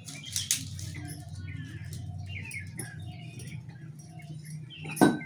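Dry twigs and sticks being snapped and fed into a wood-fired clay chulha, with light crackling and rustling of the kindling, and one loud sharp snap near the end. Birds chirp in the background.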